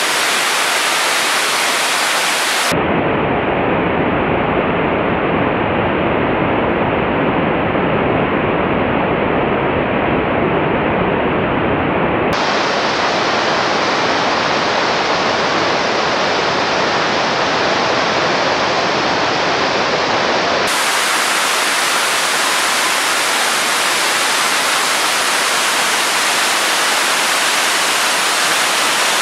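Waterfall rushing: a loud, steady hiss of falling water. Its tone shifts abruptly about three, twelve and twenty-one seconds in.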